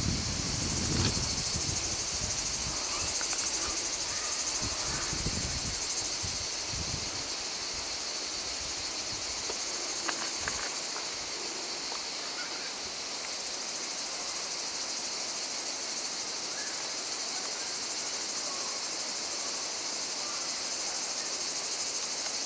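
Steady high-pitched insect chorus, with a low rumble dying away over the first several seconds.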